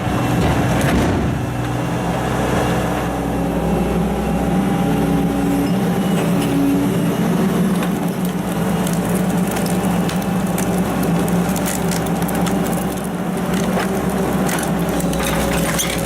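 Hydraulic log splitter running with a steady drone, with sharp cracks and splintering as wood splits, more of them near the end.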